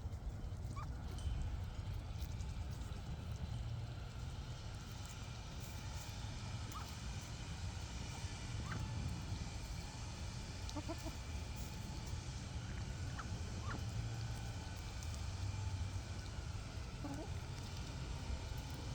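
Chickens clucking softly now and then, a handful of short calls scattered over a steady low rumble.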